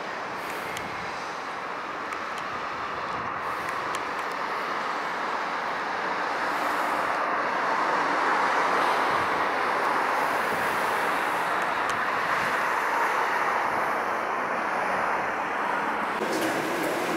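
Buses driving along a road: a steady rush of engine and tyre noise that grows louder toward the middle as a bus comes nearer, then eases a little.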